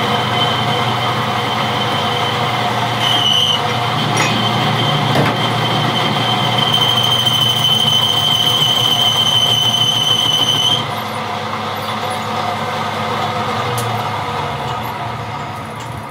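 Belt-driven metal lathe running with an off-centre hydraulic-jack part spinning in a four-jaw chuck, over a steady low hum. The cutting tool on the steel gives a high, steady squeal, first briefly about three seconds in, then from about six and a half seconds until it cuts off near eleven seconds. The machine runs on a little more quietly after that.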